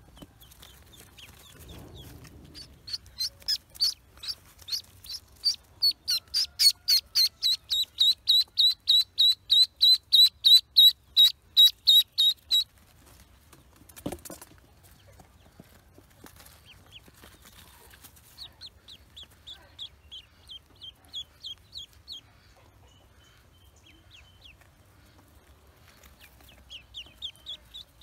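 Ducklings peeping: a fast run of loud, high, slightly falling peeps, about three a second, lasting around ten seconds, then a single sharp knock, and later two quieter runs of peeps.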